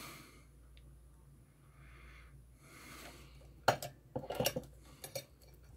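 Small metal clicks and clinks as a grounding strap's alligator clip is handled against the back of a soldering station to fasten it to a screw. After a quiet rustling start there is one sharp click a little over halfway through, then a quick cluster of clinks and a couple more light ticks.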